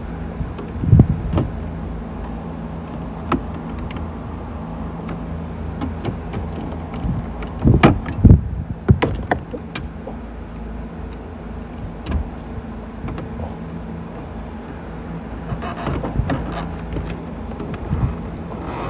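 Scattered clicks and knocks from thin radio-removal keys and hands working the stereo and its plastic dash bezel, with the sharpest knocks about eight seconds in, over a steady low hum inside the car.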